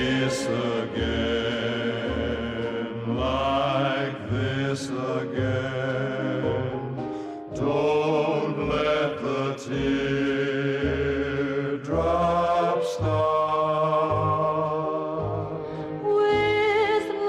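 Background music: a singing voice over a repeating bass line.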